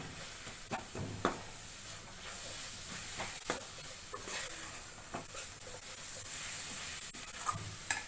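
Onion and spice masala sizzling in hot oil in a kadai, with a spatula stirring and scraping the pan in short strokes every second or so.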